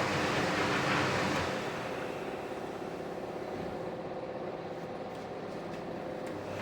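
Samsung heat-pump tumble dryer running with its cover off: the belt-driven drum turning, with a steady motor hum and a hiss that drops somewhat about a second and a half in.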